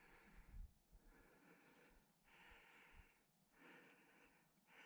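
Faint breathing close to the microphone, a soft breath about every second.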